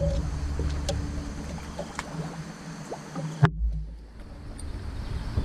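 Low steady rumble of water against a small moored boat, with a few light clicks and one sharp knock about three and a half seconds in, after which the sound turns duller.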